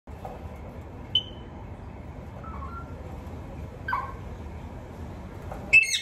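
Caged rose-ringed parakeet giving four short, sharp calls over a steady low hum, the last and loudest a quick run of notes near the end.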